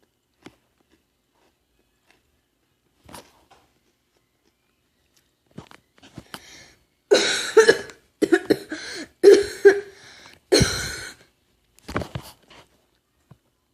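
A person coughing hard, a run of about four loud coughs starting around seven seconds in and two smaller coughs just after, with a few faint clicks before them.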